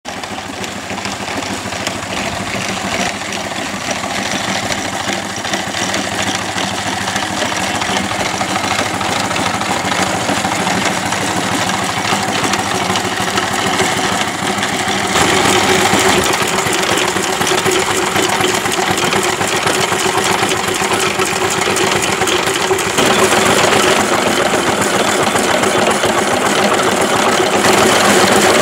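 A 4-inch scale Burrell agricultural steam traction engine running under steam and pulling a trolley with a rider. It runs continuously, growing louder from about halfway through.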